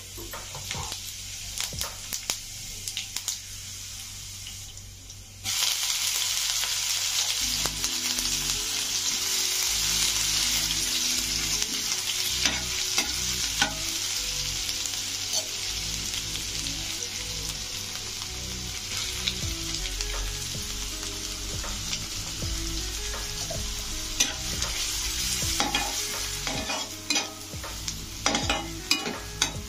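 Food frying in hot oil in a pan: after a few quiet seconds with light clinks, a loud steady sizzle starts suddenly about five seconds in. A spoon or spatula stirs against the pan throughout, ticking and scraping, with more clinks near the end.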